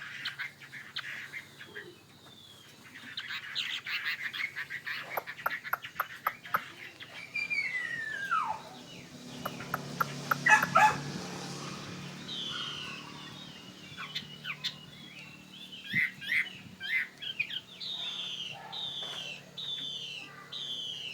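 Chinese hwamei (Garrulax canorus) calling and singing with varied chirps and whistles. There is a long falling whistle about a third of the way in, a burst of sharp clicks around the middle, and a string of falling whistled notes about once a second near the end.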